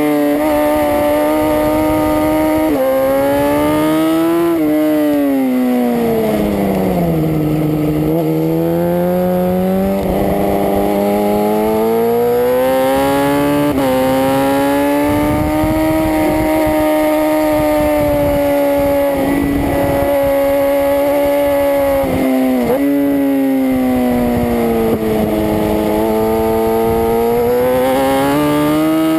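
Superbike engine heard onboard at racing speed, its revs climbing and falling as the bike accelerates and brakes, with sudden pitch jumps at gear changes. Wind rush on the microphone underneath.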